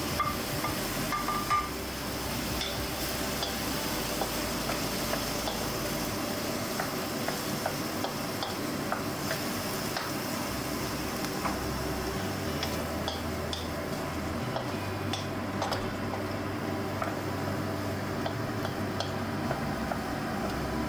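Diced tomatoes and onions sizzling in a steel wok, stirred with a wooden spoon that scrapes and taps lightly against the pan.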